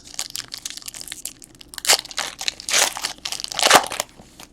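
Crinkly wrapper of a trading-card pack being handled and torn open: a run of crackling with three louder rustles.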